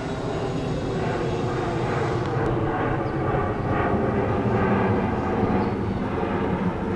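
Twin-engine jet airliner flying overhead: a steady jet engine noise that swells a little toward the middle and eases near the end.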